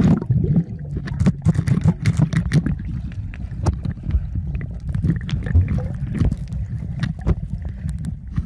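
Muffled water sound heard by a submerged camera: a low churning rumble of moving water with frequent short bubble pops and clicks.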